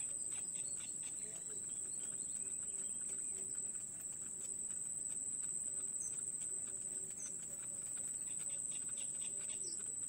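Bittern chicks in the nest giving scattered faint, short chirps, over a steady high-pitched whine.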